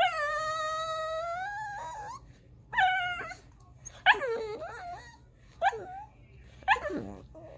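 Dog whining and crying in a drawn-out, talking-like way: one long high whine of about two seconds, then four shorter wavering whines, the last one falling in pitch.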